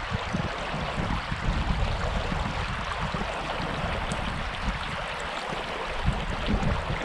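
Shallow, clear stream water running over a gravel and rock bed: a steady rushing hiss with an uneven low rumble underneath.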